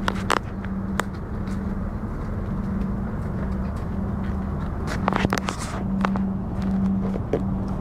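A steady low machine hum over a constant rumble, with scattered clicks and a short patch of rustling and knocking about five seconds in from the phone being handled.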